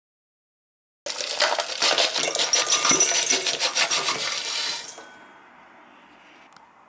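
Dry soil clods and grit poured into a stainless-steel mill bowl, rattling against the metal. It starts suddenly about a second in, lasts about four seconds, then dies away to a faint hiss with a few small ticks near the end.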